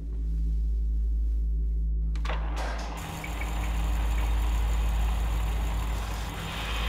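A cinema film projector starting up over a low steady hum: its motor comes on about two to three seconds in and then runs steadily.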